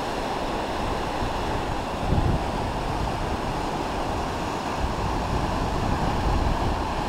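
Matanuska River's fast current rushing past a rocky bank in a steady wash of water noise, with a gust of wind buffeting the microphone about two seconds in.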